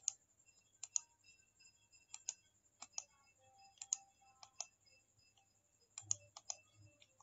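Faint, sharp clicks of a computer mouse and keyboard, about a dozen scattered irregularly, several coming in quick pairs.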